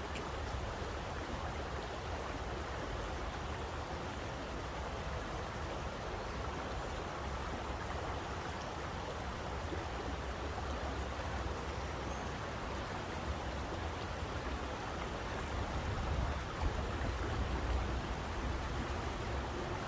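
Steady rushing of flowing water, like a stream, with a deep low rumble underneath that grows louder and more uneven over the last few seconds.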